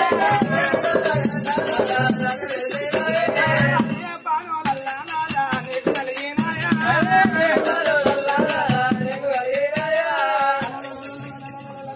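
Oggu katha folk singing: a voice sings a drawn-out, wavering melodic line over a steady rattling of shaken percussion, which breaks off briefly about four seconds in.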